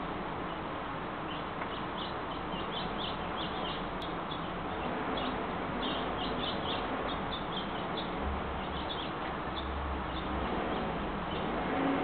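Birds chirping: many short, high chirps, thickest in the first half and sparser later, over a steady background hiss. A low hum comes in for a couple of seconds about two-thirds through.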